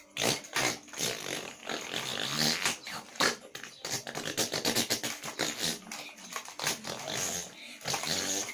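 A boy imitating a motocross bike engine with his mouth, a choppy, sputtering run of buzzing and revving sounds that breaks off and starts again many times.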